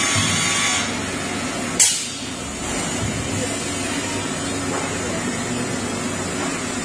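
Gantry CNC machining centre running steadily, with a short, sharp burst of noise about two seconds in, the loudest thing heard.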